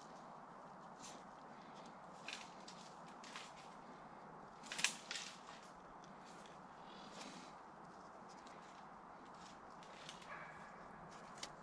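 Scattered light scrapes and clicks of a small masonry hand tool working mortar against basalt stone, one sharper click about five seconds in, over a steady faint hiss.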